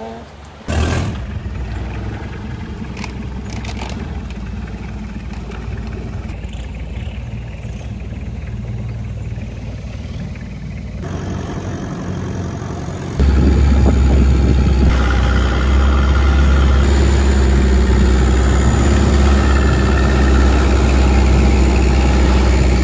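Long-tail boat's engine running with the boat under way, heard across a string of short cut-together clips. A little past halfway it becomes much louder, with a strong low drone.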